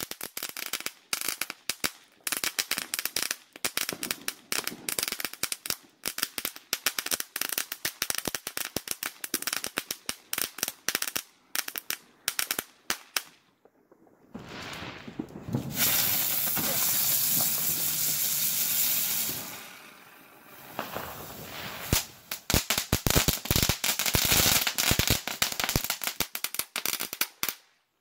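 Ground fireworks going off: a long rapid run of crackling pops, a short pause, a steady hiss lasting about five seconds, then another dense run of sharp pops near the end.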